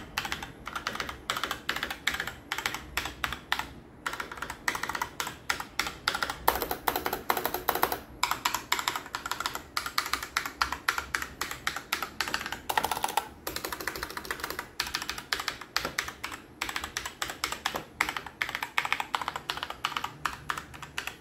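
Fast, continuous typing on a Phanteks MK853 mechanical keyboard with red switches: a dense, unbroken clatter of keystrokes.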